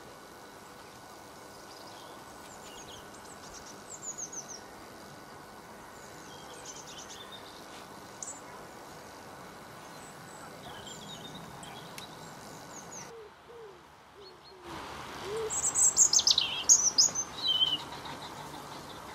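Small songbirds chirping over a steady outdoor background hiss, with scattered short high calls. After a brief drop-out the birds call louder near the end, in quick downward-sweeping notes.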